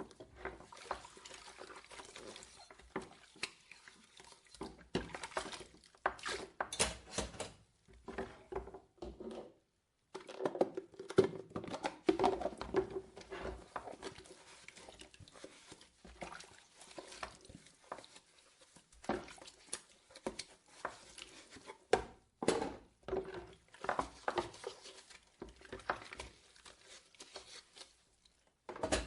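Dishwasher sounds: dishes and cutlery clinking and knocking at irregular intervals over splashing water, with a faint steady hum that comes and goes.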